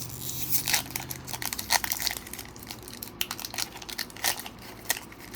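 Foil wrapper of a Pokémon booster pack crinkling in the hands as it is torn open, a run of sharp, irregular crackles.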